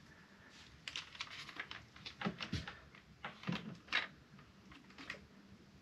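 Light, irregular clicks and knocks of a Ford Mondeo ST220's plastic in-tank fuel pump assembly and its hoses being handled, the sharpest click about four seconds in.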